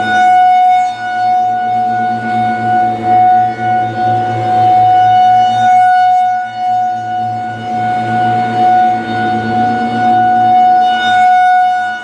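Federal Signal 2001-SRN outdoor warning siren sounding a steady alert tone on a test, held at one pitch. Its rotator turns the horn at 8 RPM, so the tone swells as the horn faces the listener and dips as it turns away, about six seconds in and again near the end.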